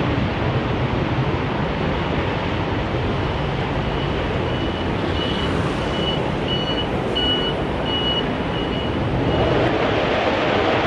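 A vehicle's reversing alarm beeps about twice a second, fading in, loudest around the middle, then fading out, over a loud, steady rushing roar.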